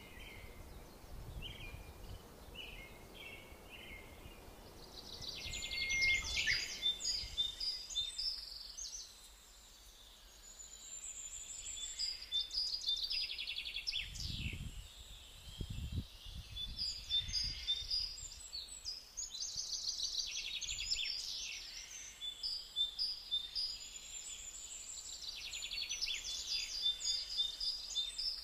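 Songbirds singing outdoors: repeated phrases of quick, high chirps and trills, each a few seconds long, over a faint steady background hiss. A brief low rumble comes about halfway through.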